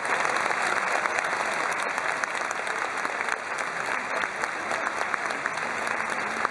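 Large audience applauding steadily, a dense run of many overlapping hand claps that eases off slightly toward the end.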